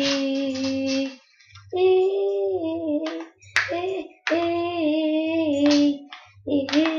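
A child singing a string of long held notes, each about a second, with short gaps between them. A couple of sharp clicks come through, one around the middle and one near the end, as a TV remote is handled.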